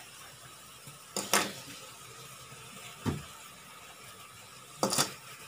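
Crabs and their shells knocking against a metal wok as they are handled in it: two quick knocks about a second in, one at about three seconds and another pair near the end, over a faint steady hiss.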